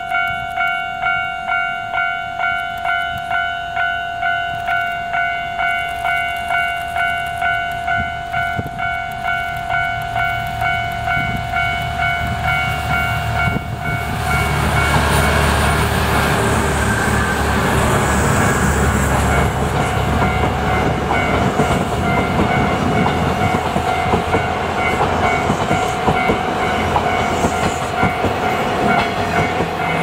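A warning bell, the kind used at a level crossing, rings in a steady pulse about twice a second. About fourteen seconds in, two DE15 diesel locomotives pulling passenger cars come close and pass, and their engines and wheels on the rails drown out the bell. The carriages keep rolling by to the end, with the bell still ringing underneath.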